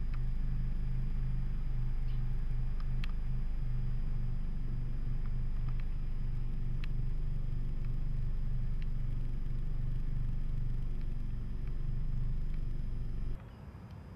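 Steady low mechanical rumble, like an engine running, with a few faint ticks; it cuts off suddenly near the end.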